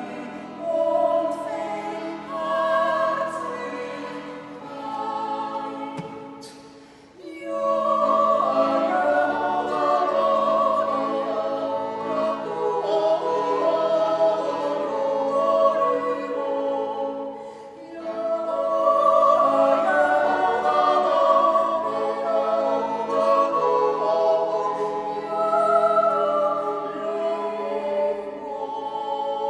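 Swiss yodel duet: a woman's and a man's voice singing a Jodellied together in harmony, accompanied by a button accordion, with a brief break in the phrase about seven seconds in.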